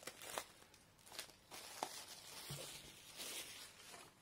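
Faint crinkling and tearing of thin plastic shrink-wrap being peeled off a cardboard box, in short irregular rustles with a few sharp clicks.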